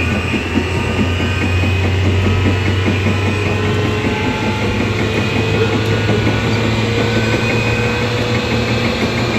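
Running sound of a 415 series 1500-subseries electric train with MT54 traction motors: a steady low hum with high-pitched whining tones that creep slightly up in pitch. The high jet-like whine is an abnormal noise whose cause the uploader cannot explain.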